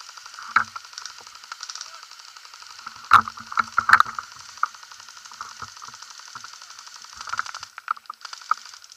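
Airsoft guns firing: a rapid chatter of clicks, with a few sharper, louder cracks about three and four seconds in.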